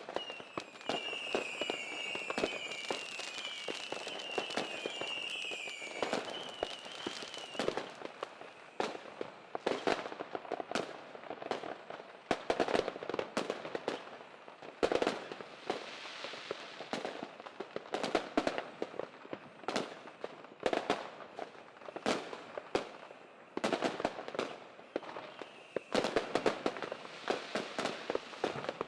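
Fireworks and firecrackers going off, an irregular run of sharp bangs and cracks, with a high repeating rising chirp during the first several seconds.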